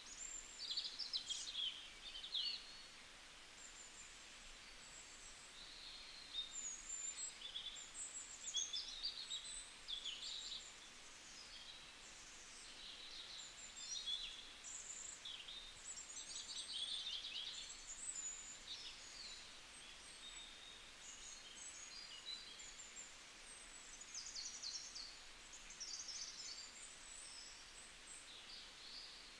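Birds chirping and trilling: many short high-pitched calls in quick succession, over a faint steady hiss.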